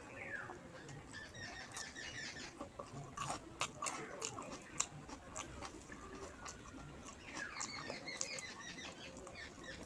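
Close-up chewing and wet mouth clicks of someone eating rice with fish curry, with a dense run of sharp clicks about three to five seconds in.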